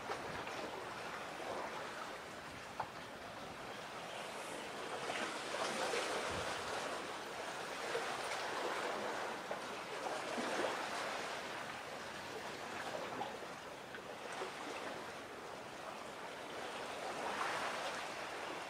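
Sea waves washing against the shore, a steady rush that swells and fades every few seconds.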